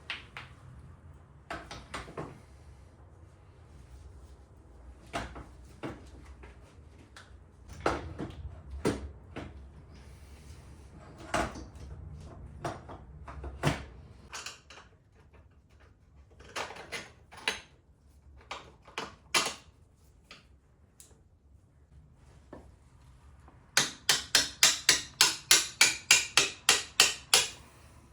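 Scattered knocks and clinks of metal tools and parts being handled. Near the end comes a quick, even run of about fifteen sharp clicks, some four a second.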